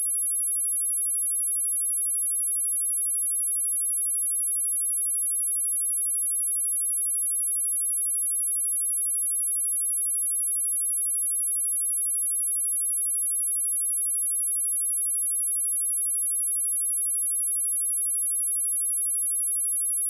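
A pure 10794 Hz sine-wave test tone, one steady high-pitched whistle-like tone held at an even level.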